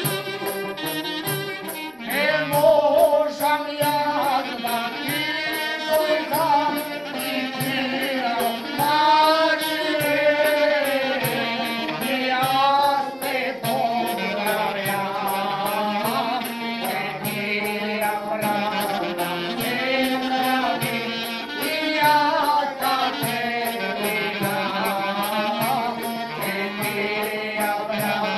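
Macedonian čalgija folk ensemble playing: a man sings a wavering, ornamented melody over violin, clarinet and a def frame drum.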